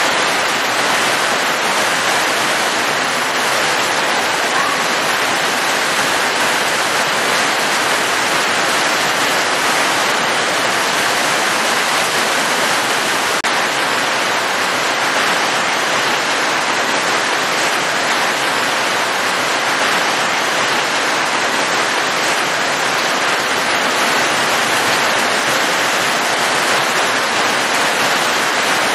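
Steady rain falling, an even hiss that never changes.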